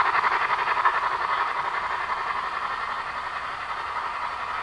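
DCC sound decoder in an OO gauge Bachmann model of the Peppercorn A1 Pacific Tornado playing rapid, steady steam exhaust chuffs through its small speaker, slowly fading as the locomotive draws away.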